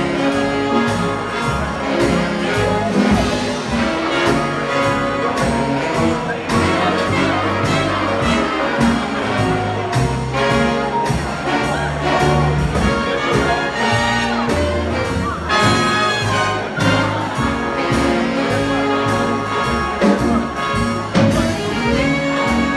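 Live swing big band playing: brass and saxophone sections over piano, upright bass and drums, with a steady dance beat.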